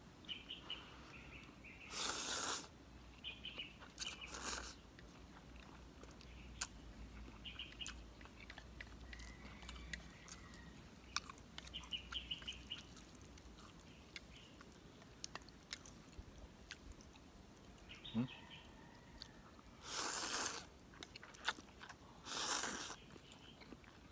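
A person slurping and chewing instant pancit canton noodles. There are four loud slurps, two a few seconds in and two near the end, with wet chewing and mouth smacks between them.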